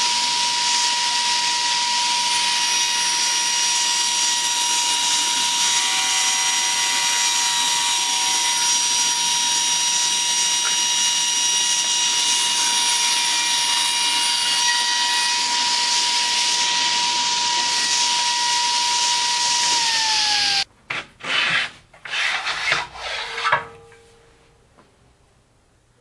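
Table saw running and cutting wood, with a steady high whine over a rushing noise. About twenty seconds in the whine drops in pitch and the sound cuts off, followed by a few short knocks and clatters.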